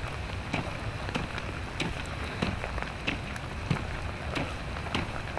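Footsteps on a wet sand-and-gravel trail at a steady walking pace, about three steps every two seconds, over a constant hiss of rain.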